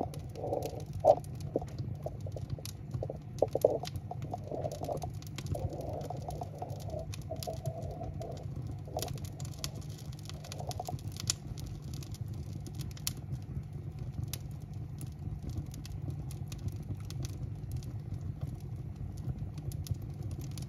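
Wood fire crackling in the firebox of a masonry baking oven, where split logs and an oil-soaked egg-carton firelighter in a paper tube are burning. It gives irregular sharp pops and ticks over a steady low hum, with a few louder pops in the first four seconds.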